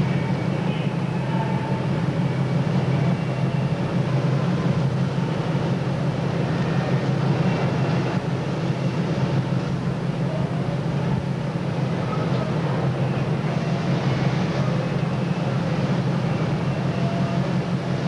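Steady low drone of a tug's engines heard on board, with an even hiss over it.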